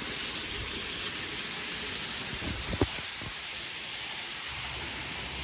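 Model train running on its track: a steady rolling hiss of wheels and motor, with one sharp click about three seconds in.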